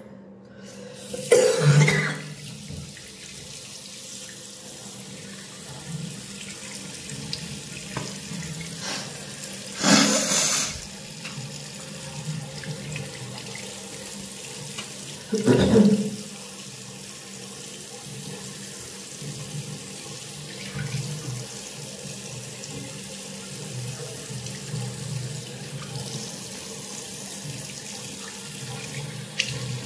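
Tap water running steadily into a sink, with three loud, short blasts over it: about a second and a half in, at about ten seconds, and at about fifteen seconds.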